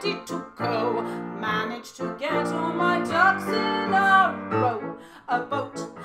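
A woman singing a comic show-tune parody to grand piano accompaniment.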